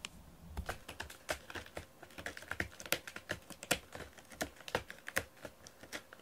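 Cat's claws scratching a corrugated cardboard scratcher: a fast, irregular run of scratchy clicks and scrapes, several a second.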